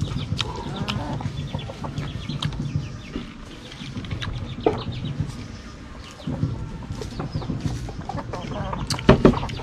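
Chickens clucking close by, over crisp crunching and chewing of batter-fried chicken wings close to the microphone, heard as many short sharp crackles.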